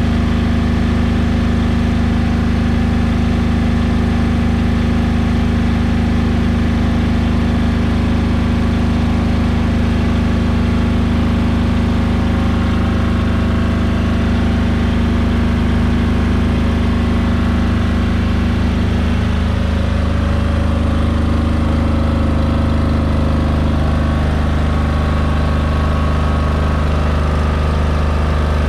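Powerzone PDG 8700SS air-cooled diesel generator running steadily inside its sound-proofed canopy, its note changing slightly about two-thirds of the way through.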